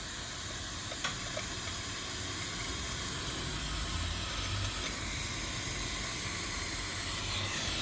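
Steady hiss, with a faint click about a second in.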